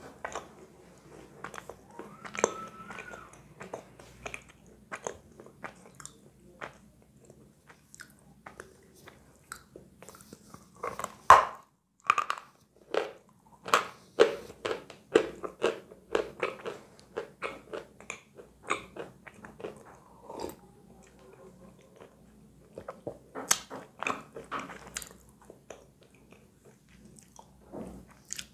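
Biting and crunchy chewing of a hard white lump of edible chalk: sharp, dry crunches that come in clusters, loudest around the middle and again near the end, with quieter chewing between.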